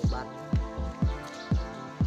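Background music with a steady bass-drum beat, about two beats a second.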